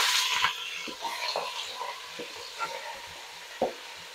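Raw chicken pieces sizzling in hot oil in a pressure cooker. The sizzle dies down within about half a second to a faint hiss, broken by a few soft taps as more pieces are dropped in by hand. A sharper tap comes near the end.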